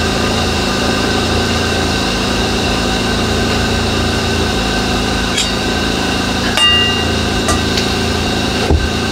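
Steady mechanical hum like a small engine running, with a few light clinks and taps of tableware, one briefly ringing about six and a half seconds in, and a dull knock near the end.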